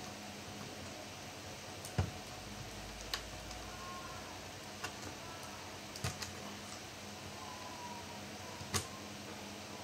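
About six sharp, irregularly spaced clicks and taps over a steady low hum: screws, a screwdriver and plastic laptop parts being handled during disassembly of an HP 250 G3 laptop.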